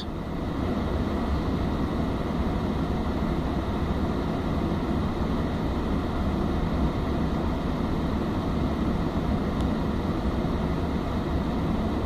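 Car's cabin blower fan running at full speed, blowing air steadily out of the dashboard vent, with a faint steady whine above the airflow.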